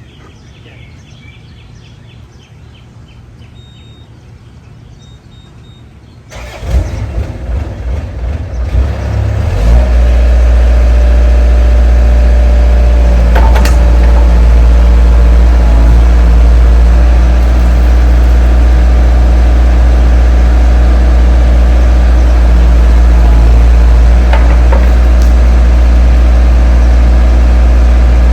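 Diesel engine of a 2002 Bobcat mini excavator being cranked over with the starter about six seconds in. It catches after about three seconds and then idles loud and steady.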